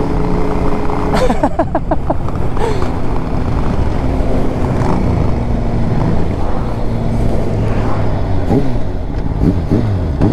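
Motorcycle engines running at road speed, with wind rushing over the microphone. The engine note slides down and up several times near the end as the bikes slow for a turn.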